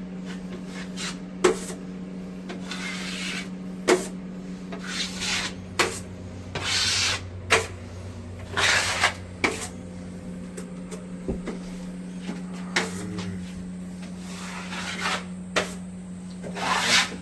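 Plastering tools scraping and rubbing across plasterboard in several short strokes, with sharp knocks and taps in between, over a steady low hum.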